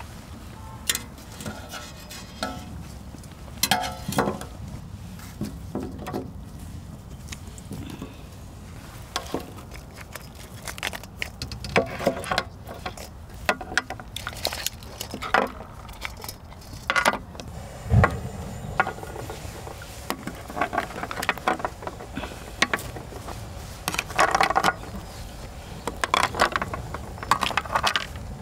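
Shellfish (whelks, clams and scallops) being set down one by one on a stainless steel tray: irregular clicks and clacks of shell on metal.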